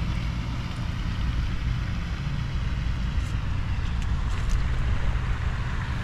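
Steady low background rumble with a few faint short clicks.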